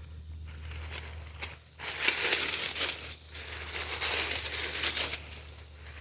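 Leafy vines rustling and crackling as they are pulled and torn out by hand. The rustling is loudest from about two to five seconds in.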